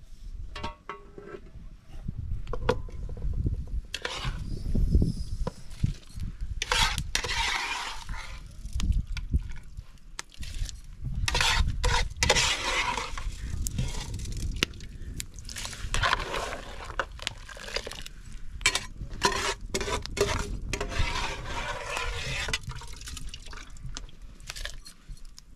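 Liquid pouring and splashing in several bursts of a second or two, with sharp clicks and knocks of pots and dishes in between.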